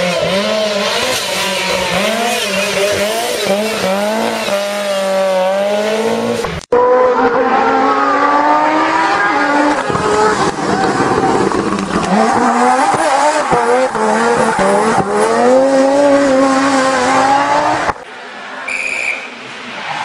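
Rally car engines at full throttle, pitch climbing and dropping again and again as the drivers shift gears and lift. An abrupt cut a third of the way in switches to another car, and the level dips briefly near the end.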